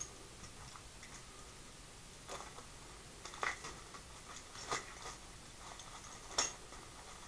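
Scattered light clicks and taps of small hard plastic items being handled on a table, over a faint room hiss; the sharpest click comes about six seconds in.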